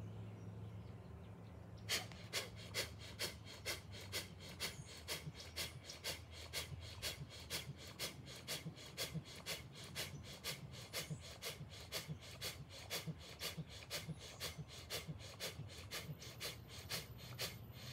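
A person doing rapid, forceful bellows breathing of bhastrika/kapalabhati pranayama, with sharp, evenly paced breaths at about three a second. The breaths start about two seconds in.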